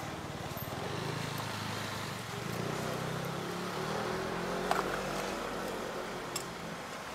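A motor vehicle engine running steadily, its pitch drifting up and down a little, with two brief sharp clicks in the second half.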